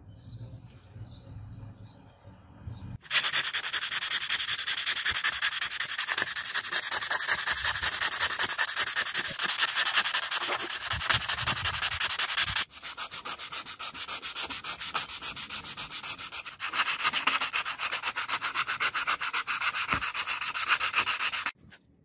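Sandpaper rubbed by hand over the small steel-and-brass padlock body in quick back-and-forth strokes, starting about three seconds in and stopping abruptly near the end.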